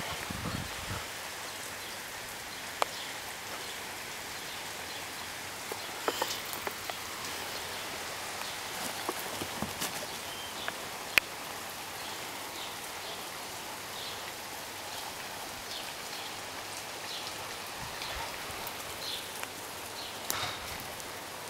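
Steady hiss of rain falling on the ground, with a few sharp clicks and rustles scattered through.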